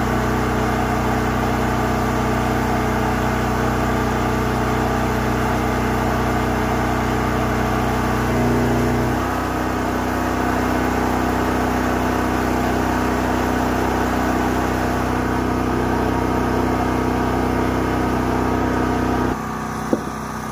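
Engine-driven spray pump running steadily. Its note shifts lower about nine seconds in, and the sound drops in level near the end.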